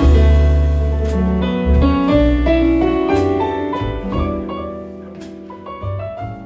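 Live jazz combo playing an instrumental passage: piano lines over bass notes, the music getting gradually quieter.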